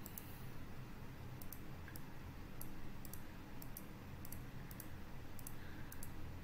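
Faint, light clicks at irregular intervals, roughly two or three a second, from a computer pointer device as the eraser tool is picked and on-screen pen ink is erased, over a low steady hum.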